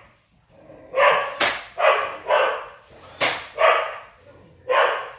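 A dog barking repeatedly, about five short barks, with a nail gun firing twice in sharp snaps as it nails cedar trim around a door.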